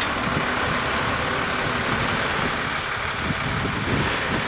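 A truck engine running steadily as it pulls away.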